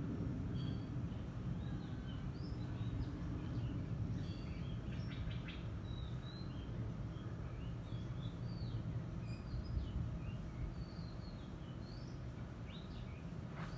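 Low rumble of a Boeing 737-800's CFM56 jet engines slowly fading as the airliner recedes after passing overhead, with small birds chirping and whistling throughout. A sharp click near the end.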